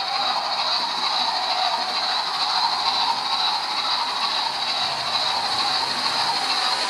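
OO gauge model train running along the track: a steady mechanical whir and rattle from the locomotive's motor and its wheels on the rails.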